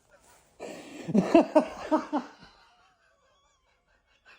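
A burst of laughter: about five quick rhythmic pulses over roughly two seconds, starting about half a second in.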